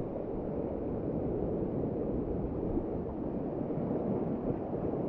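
Sea surf washing and surging over a rocky shore ledge, a steady rushing noise.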